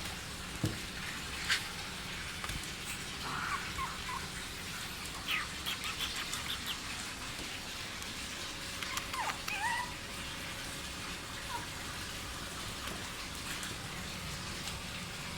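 Young pug puppies giving short, high squeaks and whimpers in a few scattered clusters over a steady background hiss.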